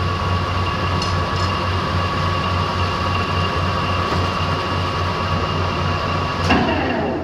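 Mori Seiki manual lathe running a power-feed turning cut: a steady motor and gear hum with a thin whine, which cuts off near the end.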